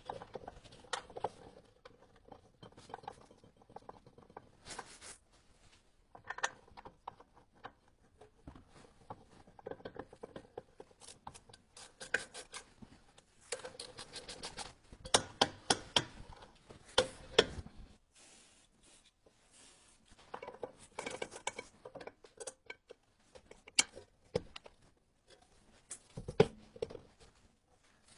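Irregular clicks, taps and scrapes of hand tools and metal parts being handled on a car's front suspension and brake assembly, coming in bunches with short pauses, busiest and loudest around the middle.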